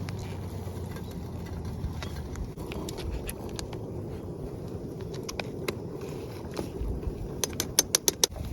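Wood fire crackling, with scattered sharp pops and a quick run of louder pops near the end, over a steady low rumble.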